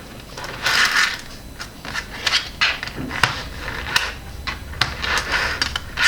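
Small 5 mm magnetic balls clicking and rattling against each other as they are snapped together and pulled apart: a string of sharp, irregular clicks with a few brief rattles.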